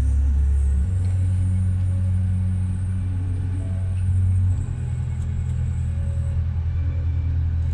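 Inside a car cabin in slow traffic: deep bass notes from the car radio, each held a few seconds and then stepping to a new note, over a low rumble from the car.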